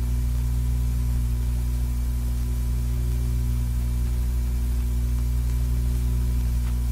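Steady low mains-type hum with faint hiss, unchanging throughout: the background noise of an old film soundtrack.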